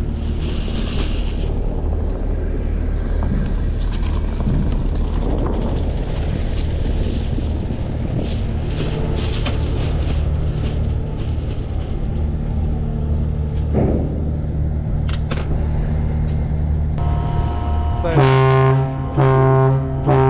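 Steady low engine drone at a river car-ferry crossing, then near the end a deep horn sounds in two loud blasts.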